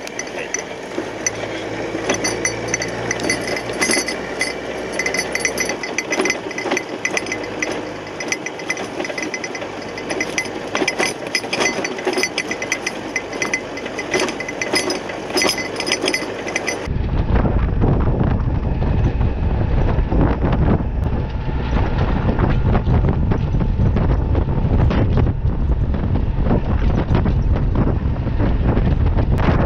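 Running noise from inside a moving vehicle, with rattles and clinks over engine and road noise. After a cut partway through, a heavy low rumble of wind buffeting and road noise takes over.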